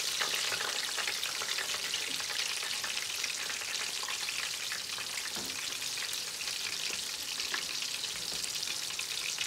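Battered fish fillets and potato chips deep-frying in hot oil: a steady sizzle full of fine crackling pops.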